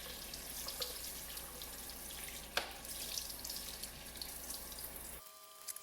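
Sink tap spraying lukewarm water over a circuit board, a steady splashing with small drips and ticks, which stops abruptly about five seconds in.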